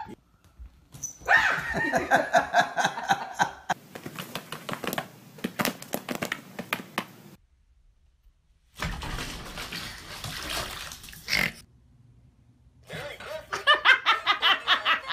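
A person laughing in quick repeated bursts near the end. Before that come several different short sounds with a brief pause about halfway through.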